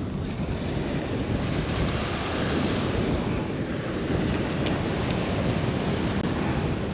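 Steady wind buffeting the microphone over the rush of ocean surf, with a couple of faint clicks about two-thirds of the way through.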